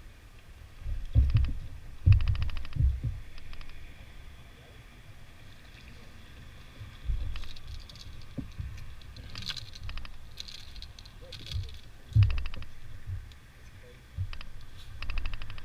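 Short bursts of rapid, even clicking, about seven of them, over low thumps and rumble.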